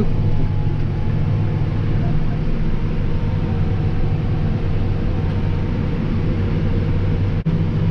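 John Deere tractor's diesel engine running steadily under load, heard from inside the cab, while it pulls a 12-row strip-till rig through the soil. A faint steady whine sits above the engine drone, and the sound drops out for a moment near the end.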